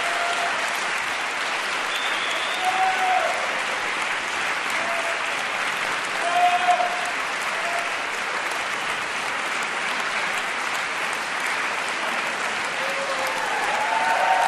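Audience applauding steadily, clapping held at an even level, growing a little louder near the end.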